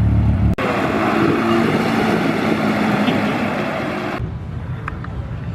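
Car engine and exhaust noise from cars driving off, broken by two abrupt cuts: a low engine drone switches about half a second in to a louder, hissier engine noise, which stops suddenly about four seconds in, leaving quieter vehicle noise.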